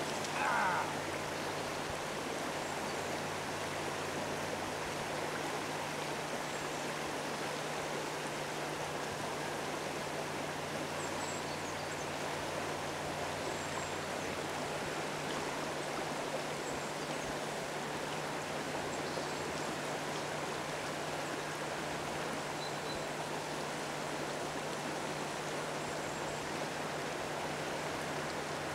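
Steady rush of a shallow, clear river running over gravel riffles, with a brief higher sound about half a second in.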